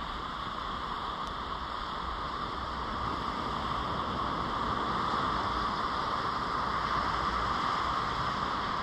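Steady rushing noise of coastal wind and surf, growing a little louder about three seconds in.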